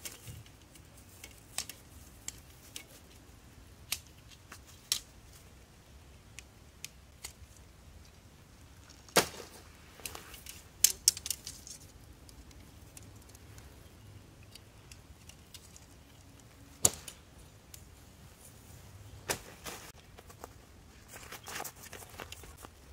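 Tent poles and tent being handled during pitching: scattered light clicks and several sharp clacks of pole sections knocking together, the loudest about nine, eleven, seventeen and nineteen seconds in, with a patch of rustling near the end.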